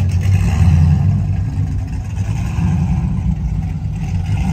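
Deep exhaust rumble of an SUV's engine as it drives slowly up a ramp and past, easing off slightly near the end.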